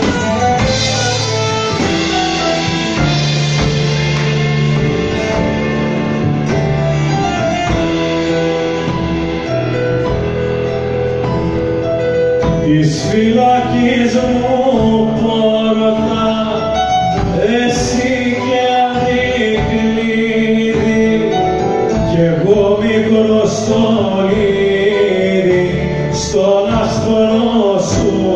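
Live band of oud, keyboard, double bass and drums playing an instrumental passage, with a male voice starting to sing over it about halfway through.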